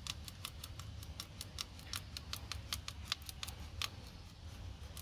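A small knife blade scoring the soft bark of a papaya trunk in quick short strokes, a run of sharp scratchy clicks several a second that thins out near the end.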